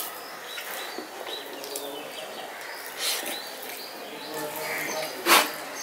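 Fingers mixing rice with mashed taro leaves (kochur shak) on a steel plate: soft squishing and scraping, with one sharp click about five seconds in. Birds chirp faintly in the background.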